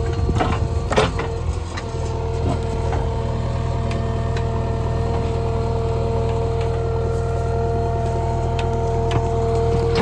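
JCB 3DX backhoe loader's diesel engine running steadily, with a steady whine over it. A few sharp cracks come in the first second or two.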